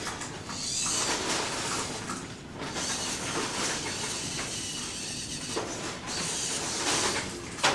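Small wheeled robot's drive motors whirring with a hissing, mechanical sound as it turns and drives forward, swelling and easing as it moves. There is a sharp click right at the end.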